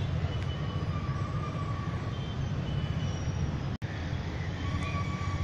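Outdoor background noise: a steady low rumble with faint thin tones above it now and then, broken by a brief dropout about four seconds in.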